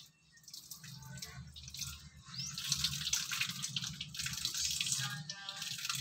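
Water splashing and dripping, as when water is poured or used for rinsing during chicken dressing; it grows louder and busier about halfway through.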